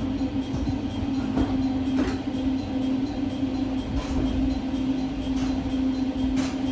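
JR Shikoku 8600 series electric train standing still, giving a steady low hum over a low rumble.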